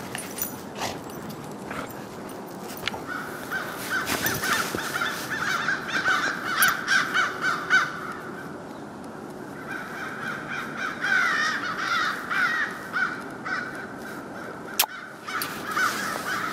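An animal calling: rapid, repeated high calls in two long runs, the first starting about three seconds in and the second after a pause of about two seconds. A sharp click comes near the end.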